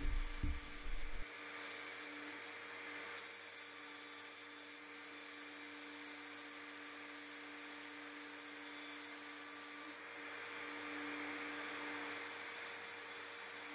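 Compact plunge router running steadily with a high, even whine while it mills a slot through 12 mm multiplex plywood.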